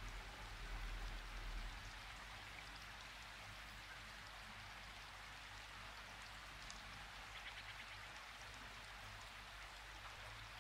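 Faint steady hiss with a low hum underneath: background noise.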